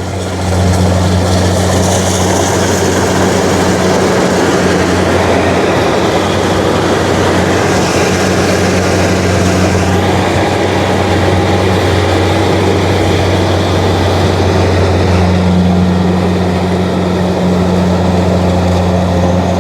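Rice combine harvester running close by, with a loud, steady engine hum and mechanical noise over it.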